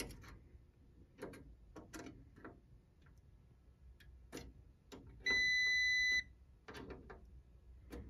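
A clamp meter's continuity beeper sounds one steady high beep, about a second long, a little past halfway through, as the test leads close a circuit through a good fuse. Around it are faint ticks of the probe tips tapping fuse ends that give no tone, the sign of blown fuses.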